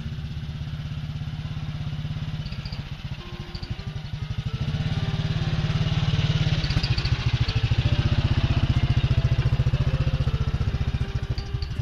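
ATV engine running with an even low pulsing as it pulls a loaded trailer past at close range, getting louder about halfway through as it comes alongside.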